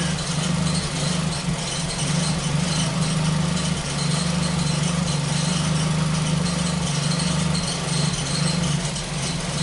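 Ford Focus engine idling steadily. The engine still has an occasional misfire that a recent repair has reduced but not cured.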